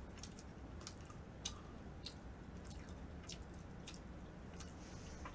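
Soft, scattered mouth clicks of chewing close to the microphone, about eight faint ticks over a low steady hum.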